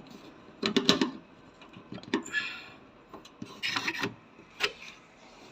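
Hand working the door-lock mechanism of a front-loading washing machine: a few short clicks and scraping rubs as the silver lock latch is pushed to the left to free the door.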